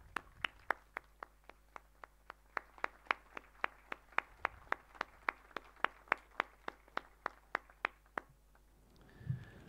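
Hand clapping in one steady, even rhythm of about three to four sharp claps a second, stopping about eight seconds in.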